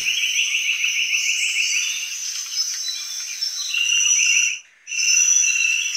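iPhone 4S loudspeaker playing a high, fast-repeating chirping sound. It sounds thin, with nothing in the low end. It cuts out for a moment about three-quarters of the way through, then comes back.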